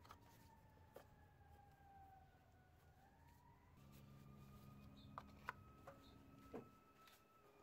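Near silence, with a few faint clicks of plastic being handled as the oil filler cap comes off and a plastic funnel is set into the filler neck. Behind them, a faint distant siren slowly falls and rises in pitch, and a low hum starts about four seconds in.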